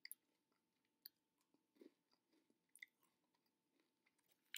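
Faint chewing of a crunchy mint M&M candy in near silence: a handful of soft crunches, about a second apart.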